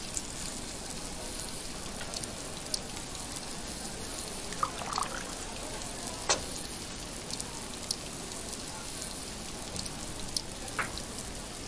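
Meat sizzling on a tabletop barbecue grill: a steady frying hiss, with a few light clinks of tableware scattered through it.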